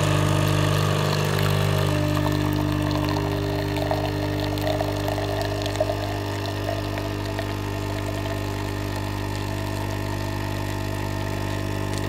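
Nespresso Citiz capsule machine's pump buzzing steadily while brewing a Lungo, its tone shifting slightly about two seconds in, with the coffee running into a stainless steel travel mug.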